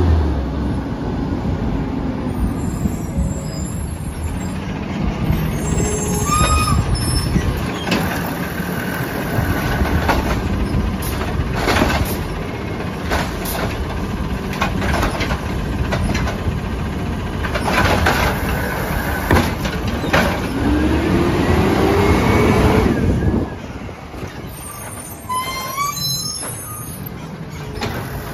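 Peterbilt 320 automated side-loader garbage truck's engine running as it approaches and pulls up to the curb, with short brake squeals and sharp air-brake hisses. A rising whine builds for a couple of seconds about three-quarters of the way through, then the truck drops to a quieter idle.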